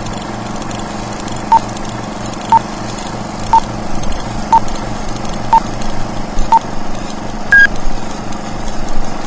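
Old-film leader countdown sound effect: a steady film-projector whirr with a short beep once a second, six times, then a longer, higher beep near the end.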